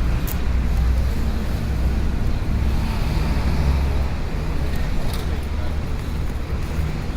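City street ambience: a steady low rumble of road traffic, with an even wash of noise and a few brief clicks.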